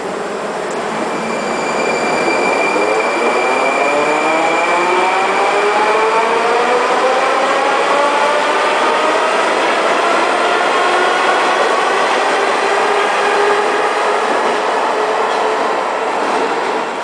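Moscow Metro train pulling out of the station and accelerating away. Its electric traction motors give a whine of several tones that climbs steadily in pitch for about ten seconds over the running noise of the wheels on the rails. A thin steady high tone is heard in the first few seconds.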